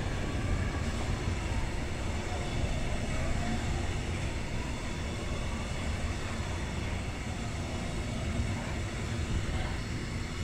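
Container flat wagons of a freight train rolling past, a steady rumble of wheels on rail that eases slightly at the very end as the last wagon goes by.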